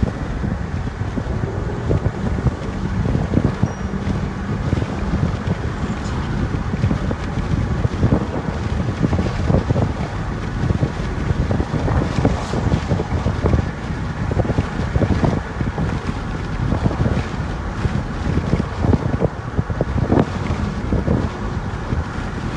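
Road and wind noise inside a moving vehicle: a steady low rumble with gusty wind buffeting on the phone microphone.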